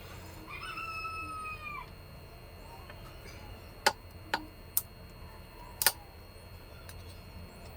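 A single drawn-out animal call, lasting over a second, in the background, then four sharp clicks or taps over about two seconds.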